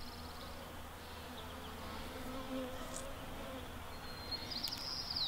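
A flying insect buzzing faintly, its hum wavering as it moves, with a high, rapid trill starting about four seconds in.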